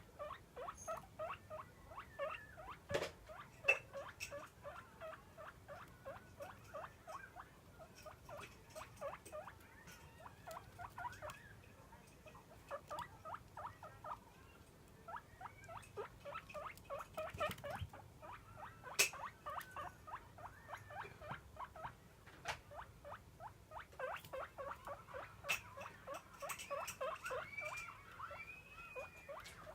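Guinea pig squeaking in rapid runs of short calls, several a second, with a few longer rising whistles near the end: begging for food at feeding time. A few sharp clicks break in.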